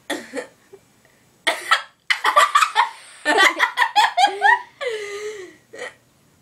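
A female voice hiccuping and laughing helplessly: a few short, sharp hiccups in the first couple of seconds, then about four seconds of hard, high-pitched laughter. The laughter ends in a long drawn-out squeal, followed by one more hiccup. This is a laughing fit set off by a bad case of hiccups.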